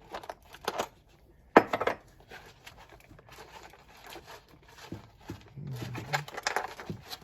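Irregular clicks, knocks and clatters of a vibratory tumbler's bowl and lid being handled and taken apart, with the sharpest knock about one and a half seconds in.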